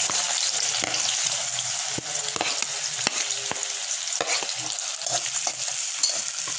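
Freshly added chopped onions sizzling in hot oil in a pan, a steady frying hiss with scattered sharp crackles and clicks.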